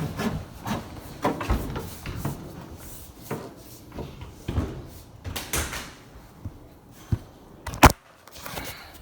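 Irregular knocks and clatter of hands and tools working inside a kitchen sink cabinet, with one sharp, loud knock near the end.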